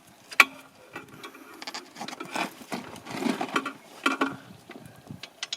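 Irregular clicks, taps and metal clatter of hand tools working on a motorcycle exhaust, with one sharp click about half a second in.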